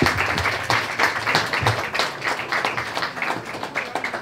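A room of people applauding, with many hands clapping densely and unevenly.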